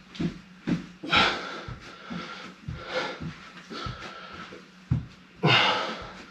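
A man breathing hard and wheezing from exertion mid-workout, with three loud exhales about two seconds apart. Soft, short thuds about twice a second run between the breaths.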